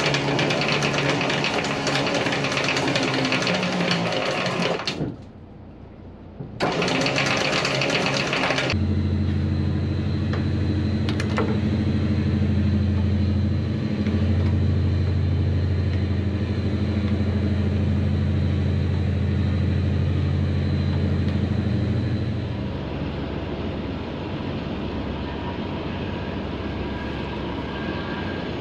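Wind buffeting the microphone, then the boat's engine running steadily at low revs, a steady low hum that eases off somewhat in the last few seconds.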